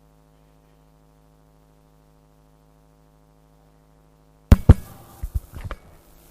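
A faint held chord on a synthesizer keyboard, as steady tones with no change. About four and a half seconds in, a burst of loud knocks and clatter cuts in.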